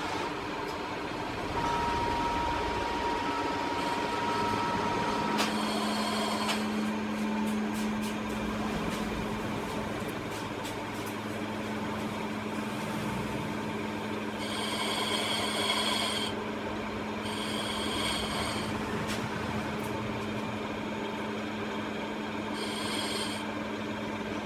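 Metal lathe turning a steel shaft: steady motor and spindle hum with the scraping of the cutting tool in the cut. A high steady tone sounds for a few seconds near the start, and short high-pitched ringing bursts come three times in the second half.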